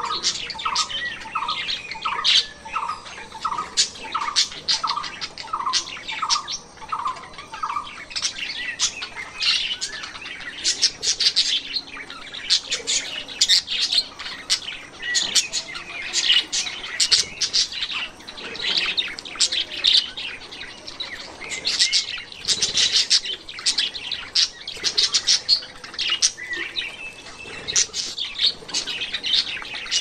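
Many small cage birds chirping together: dense, short, high chirps throughout. For the first eight seconds a regular series of lower, slightly falling notes repeats about twice a second.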